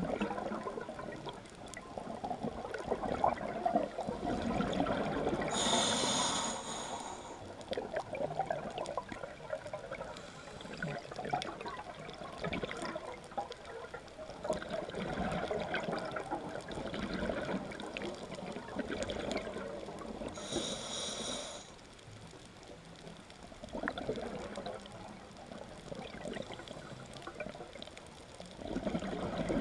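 Scuba diver breathing through a regulator underwater, heard through the camera housing. There are two short hissing inhalations, about fifteen seconds apart, and between them several seconds of bubbling as exhaled air escapes.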